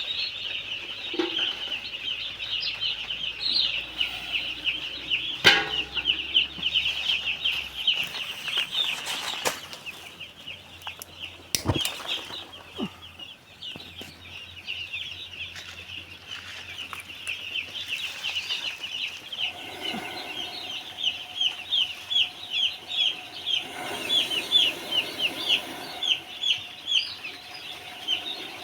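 A crowd of young broiler chicks peeping non-stop, a dense chorus of short, high chirps, with a few sharp knocks now and then.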